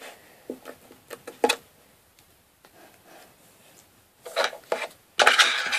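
Slime and its small plastic pot being handled: a few light clicks and taps, then near the end a loud, dense rubbing and crackling as the slime is worked in the hands.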